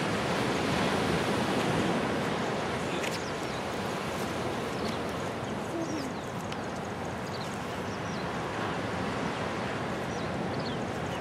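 Steady rushing wash of ocean surf, with a few faint high chirps.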